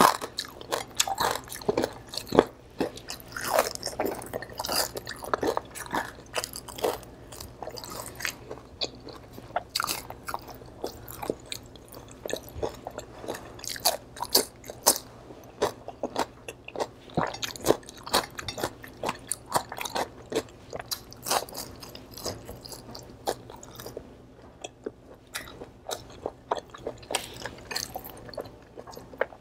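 Close-miked chewing and loud, irregular crunching as crispy deep-fried pork is bitten and eaten, with many sharp crunches in quick succession and a brief lull about three-quarters of the way through.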